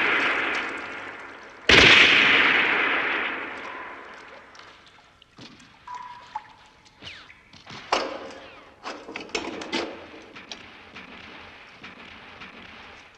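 A single loud gunshot about two seconds in, echoing away over a couple of seconds. After it come scattered quiet clicks, knocks and cloth rustles of a soldier handling his rifle and belt and pulling off his uniform tunic.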